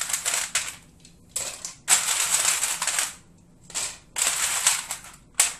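Ice cubes clattering into a clear plastic blender cup in six separate bursts of rattling, some brief and some lasting about a second.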